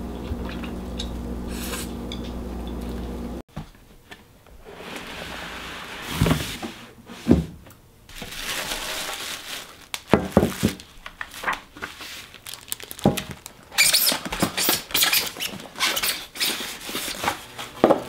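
Background music ends abruptly about three and a half seconds in. Then clear plastic wrapping crinkles and rustles as a new cooking pot is unwrapped from its packaging, with scattered knocks and clicks from the handling, busiest in the second half.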